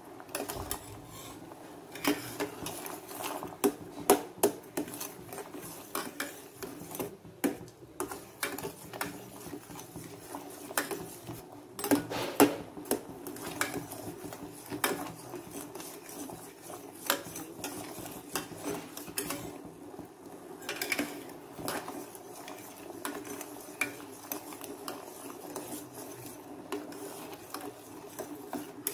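A spatula stirring jaggery as it melts in a pan, scraping and knocking irregularly against the pan, over a steady low hum.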